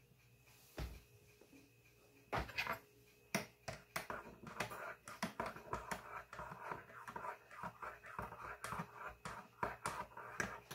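Metal spoon stirring a drink in a ceramic mug, clinking and scraping against the sides over and over, starting a couple of seconds in after a single soft knock.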